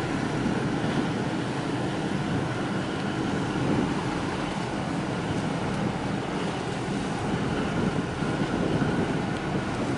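Steady rumbling noise of wind on the microphone and sea water washing at the harbour wall.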